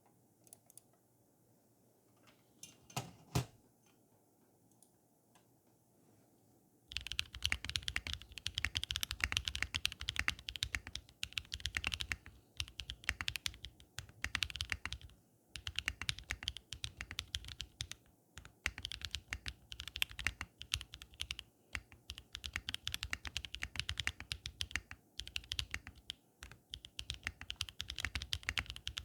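Typing on a TKC Portico mechanical keyboard fitted with lubed Everglide Dark Jade Black (Moyu Black) linear switches, an FR4 plate and PBT keycaps. A few stray clicks come first, then a fast, steady run of keystrokes starts about seven seconds in, broken by brief pauses.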